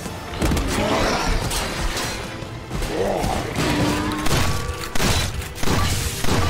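Action-film sound mix: a music score under a run of heavy impacts and crashes, with several sharp hits close together in the second half.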